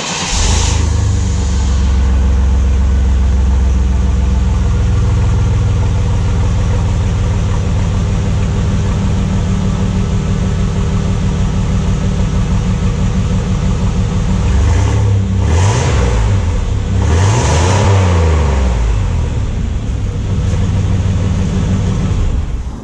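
Chevy S10 pickup's engine running loud and straight-piped, with the muffler cut off, heard at the open exhaust pipe. It idles steadily and is blipped twice about two-thirds of the way through.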